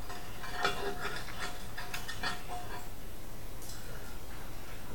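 Faint, scattered clicks and light rattles of small plastic wire connectors and wires being handled and pushed through a hole in a sheet-metal 3D-printer frame, over a steady low background hum.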